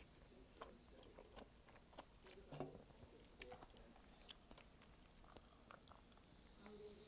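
Faint chewing and biting while eating malatang, with scattered soft clicks and mouth sounds and one slightly louder moment about two and a half seconds in.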